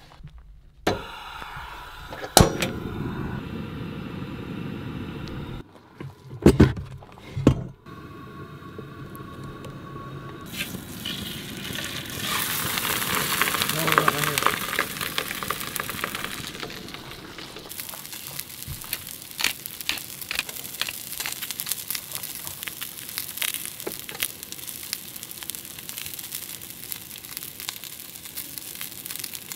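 A king salmon fillet frying in oil in a pan on a camp stove: the sizzle swells loudly a little over ten seconds in, as the fish goes into the hot oil, then settles into a steady sizzle with crackling pops. Earlier come a few sharp knocks as the pan is handled on the stove.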